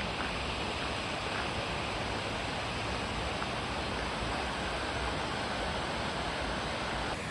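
Water rushing steadily over a stone dam: an even, unbroken noise.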